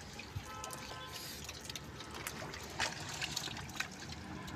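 Wet mud and water squelching, trickling and dripping as hands scoop small fish out of shallow mud, with scattered short clicks and splashes.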